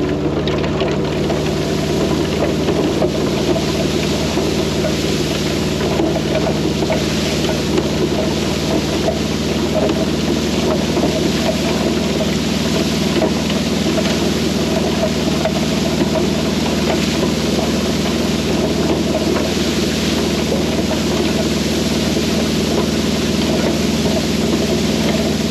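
An engine running steadily under load, a constant low drone with a heavy hiss and rattle over it.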